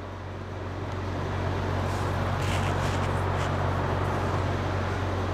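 Steady background rumble and hiss with a low hum under it, swelling in over the first second and a half and then holding even.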